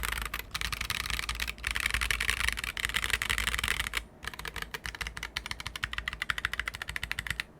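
Fast, steady typing on a Saka68 mechanical keyboard with stock Boba U4T tactile switches, an aluminium plate and CNC aluminium keycaps: a dense run of key clacks, with a brief pause about four seconds in and stopping just before the end.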